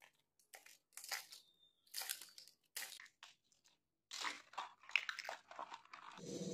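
Small plastic toys clattering and knocking as they are picked up and dropped into a plastic basket: an irregular run of short knocks and rattles.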